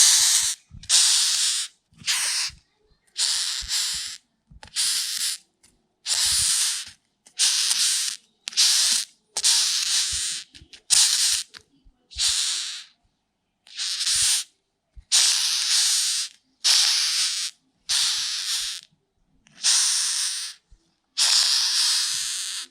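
Rhinoceros beetle hissing in short raspy bursts, one every second or so, each lasting well under a second, with brief silences between.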